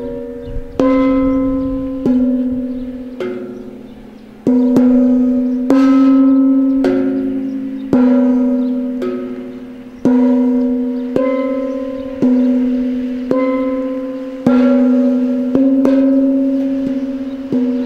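Bell-like metallic tones struck about once a second, each ringing and fading before the next strike. The pattern stays on much the same low note while the higher tones above it shift from strike to strike, like a slow tolling of bells.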